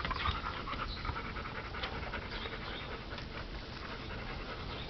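Airedale terrier puppy panting right up against the microphone.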